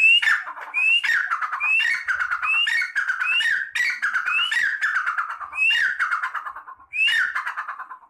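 Partridge (teetar) calling loudly and repeatedly, about nine phrases roughly a second apart. Each phrase is a short rising whistle followed by a harsh, rattly falling note.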